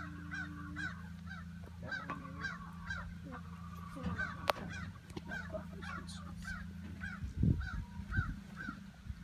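A bird calling over and over in short, even calls, about two or three a second, over a steady low hum, with a brief louder rustle or bump near the end.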